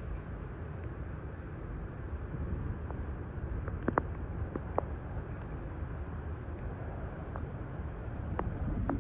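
Wind rumbling on the microphone, with a few short splashes and scrapes of boots working leaves out of a flooded street drain: two about halfway through and two near the end.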